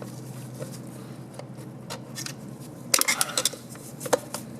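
Small screwdrivers clicking and scraping on a snap ring inside a 700R4 automatic transmission as it is pried out, with a quick run of metal clicks about three seconds in and one sharp tick near the end. A faint steady hum sits underneath.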